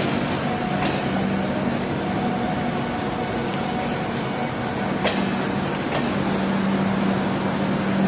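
Air-conditioned passenger coaches of the Howrah Rajdhani Express rolling slowly past a platform: a steady low hum over an even rumble, with a couple of sharp clicks.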